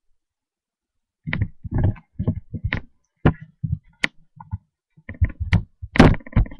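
A run of irregular knocks, thumps and clicks of handling close to a laptop's built-in microphone, starting about a second in.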